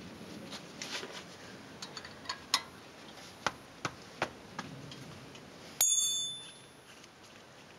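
A 13 mm wrench clicks sharply and irregularly against the caliper bolt of a Jeep Wrangler TJ front brake caliper as the bolt is loosened. Just before six seconds in, a metal tool gives one bright ringing clink that dies away within half a second.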